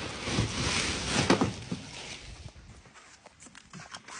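Plastic wrapping being pulled off a new MIG welding machine, crinkling and rustling with small crackles. It is loudest in the first second and a half, then fades to fainter crackles.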